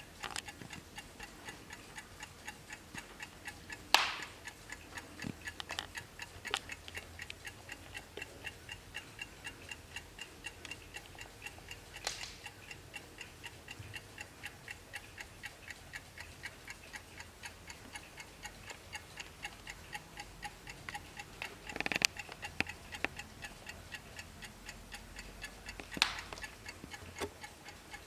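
Mechanical movement of a 1950s Wehrle key-wound kitchen wall clock ticking steadily and evenly. A few louder clicks or knocks stand out, one a few seconds in, one near the middle and two near the end.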